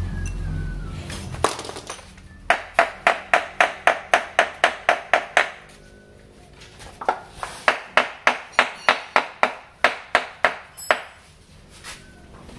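Hammer tapping on the metal of a stripped Isuzu Panther diesel engine block: a single tap, then two runs of about a dozen quick ringing taps, roughly four a second, with a pause between.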